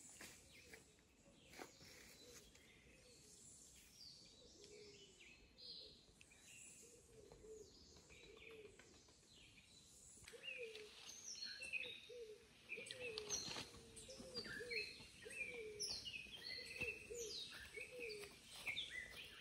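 Faint birdsong: many quick high chirps from several birds, joined about halfway through by a lower, downward-slurred note repeated a little under twice a second.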